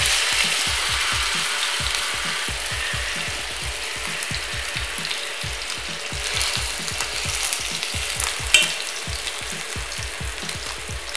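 Salmon steak sizzling as it pan-fries in a little oil in a nonstick pan, loudest as the fish first goes in and easing off gradually. A single sharp tap comes about three-quarters of the way through.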